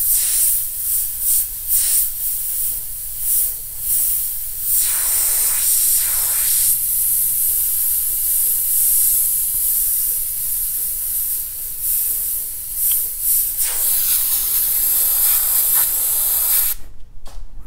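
Airbrush spraying paint, a high hiss that swells and dips in short pulses as the trigger is worked, then cuts off about a second before the end.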